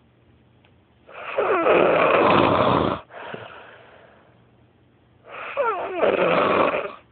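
Loud snoring: two long, rattling snores about four seconds apart, each lasting about two seconds, with a softer breath trailing off after the first.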